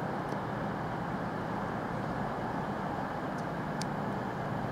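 Steady railway-station background noise: an even rushing with a low hum under it, and a couple of faint short clicks near the end.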